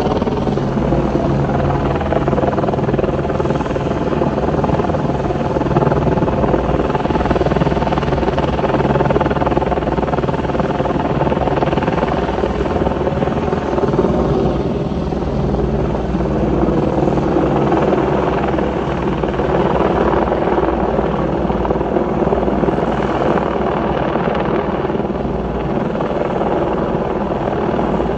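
Search-and-rescue helicopter hovering overhead, its rotor and engine running at a steady, even level throughout.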